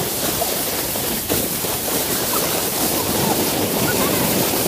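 A sled loaded with several children sliding fast down a snowy slope: a steady rushing hiss of the sled over the snow, mixed with wind buffeting the microphone.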